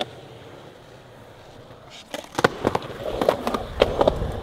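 Skateboard rolling on concrete, then from about two seconds in a series of sharp clacks and knocks as the board snaps and lands under the rolling wheels.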